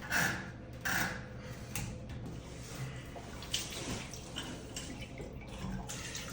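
Water dripping and trickling, with a few short knocks.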